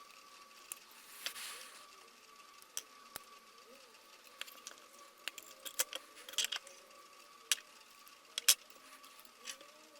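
Irregular small metallic clicks and clinks of hand tools working on a cordless vacuum battery pack's cell connections, with a brief scrape about a second in and the sharpest click near the end, over a faint steady high-pitched tone.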